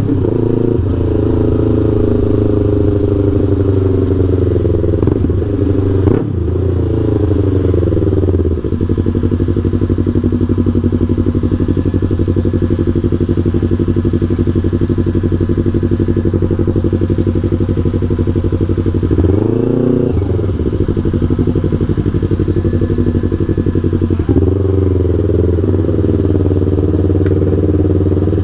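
Yamaha R3's parallel-twin engine running through a Full Pro aftermarket exhaust, with an ECU remap, while riding. The engine note holds mostly steady, with pitch changes about six and eight seconds in, and a dip and rise around twenty seconds in.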